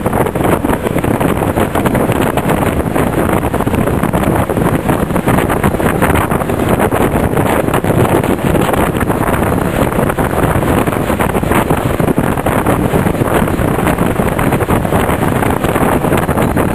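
Loud, steady rush of wind buffeting the microphone over the running noise of a moving vehicle, unbroken throughout.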